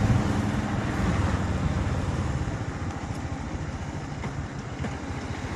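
Motorcycle engine running on the move, with wind and road noise, getting gradually quieter.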